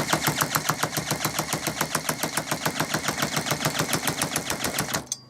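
Gardenline GLPC 41 chainsaw's small two-stroke engine being spun over without firing, an even chugging of about a dozen compression strokes a second that stops abruptly about five seconds in. It doesn't spin fast enough to start.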